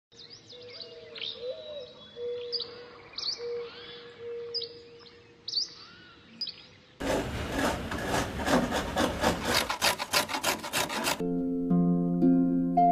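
Birds chirping and calling for the first several seconds. About seven seconds in, wood is sawn with rapid rasping strokes for about four seconds, cutting off suddenly. Music with held flute-like notes starts near the end.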